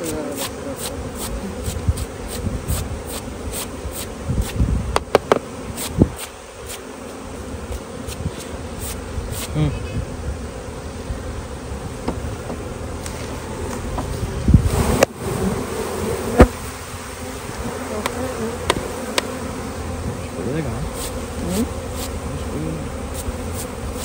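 Honey bees buzzing in a steady swarm hum around an opened hive, with scattered clicks and knocks from the frames and bee brush being handled; the loudest knock comes about two-thirds of the way through.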